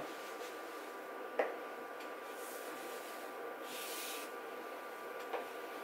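Chalk drawing on a chalkboard: two short scraping strokes, about two and a half and four seconds in, with a light tap of chalk on the board just before, over a faint steady room hum.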